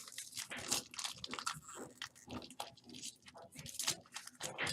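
Trading-card packs and cards being handled: irregular crinkling and crackling of pack wrappers with cards flicking and sliding against each other.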